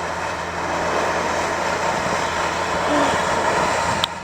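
A Black Widow firework fountain burning with a steady spraying hiss. A low steady hum runs underneath.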